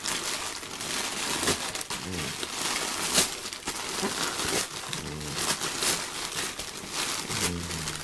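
Christmas wrapping paper being crumpled and torn open, a continuous crinkling with sharper crackles, the loudest about three seconds in. A few short low voice sounds come over it.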